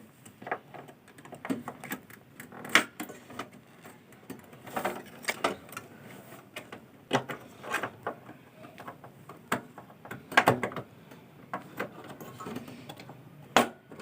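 Irregular clicks and knocks of hands working inside a desktop computer case, handling and reseating a RAM stick that is not going in properly.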